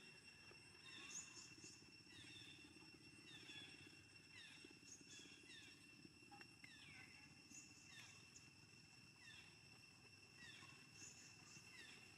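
Faint outdoor ambience: a steady high-pitched hum with short falling chirps repeating about once a second.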